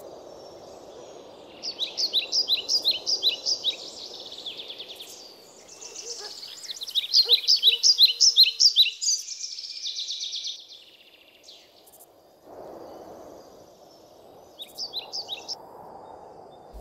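A songbird singing in three runs of quick, high, repeated chirps, about four or five notes a second, over a steady background hiss of outdoor ambience.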